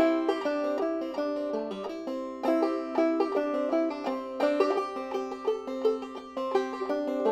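Instrumental theme music with quick, continuous plucked-string notes in a lively picking pattern.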